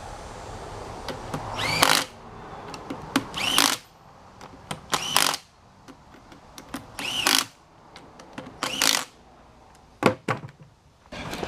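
A handheld power tool's motor run in five short bursts, each rising in pitch as it spins up, about every one and a half to two seconds.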